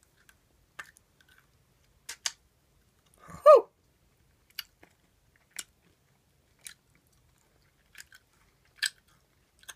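Chewing a sour Skittle: scattered wet mouth clicks and smacks at an uneven pace. About three and a half seconds in comes one short vocal sound that falls in pitch, a reaction to the sourness.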